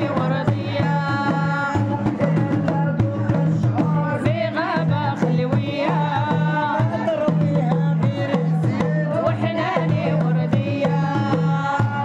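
Moroccan Issawa hadra music: hand drums beating a steady repeating rhythm under a sung chant with long held and bending notes.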